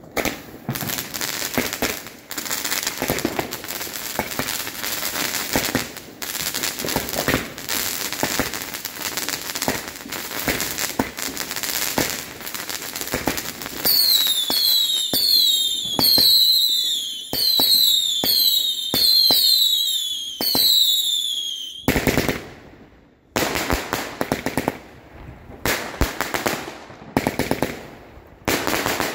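Weco Matrix firework battery firing its tubes. For the first fourteen seconds or so it fires a dense, rapid string of shots and pops. Then comes a run of whistling shots, each whistle falling in pitch over the pops, and from about two-thirds of the way in the shots come separately in short groups with gaps between them.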